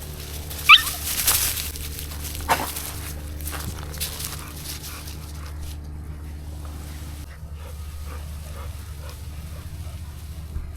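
American Bully dogs at rough play: one sharp, high-pitched yelp about a second in, then scuffling and another short sharp sound, over a steady low hum.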